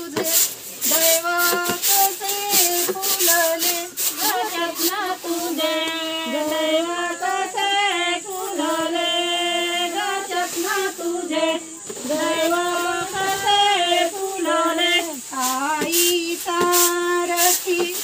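A woman's high voice singing a Marathi folk song in long, held, wavering notes, with a dry rattle behind it.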